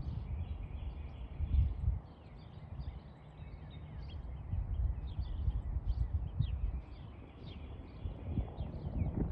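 Small birds chirping again and again over a low, steady rumbling noise, which swells briefly about one and a half seconds in.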